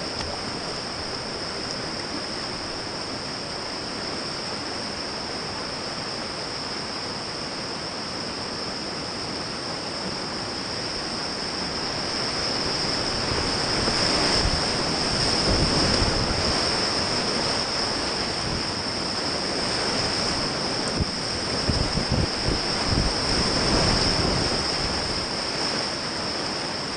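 River rapids rushing around a whitewater kayak, the water noise growing louder about halfway through as the kayak runs the whitewater, with low splashing pulses near the middle and toward the end. A steady high-pitched tone sits over it throughout.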